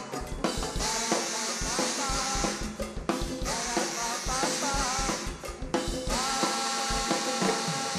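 Canarian murga music: bass drum and snare drum keep a steady march beat with cymbal crashes, under a melody line.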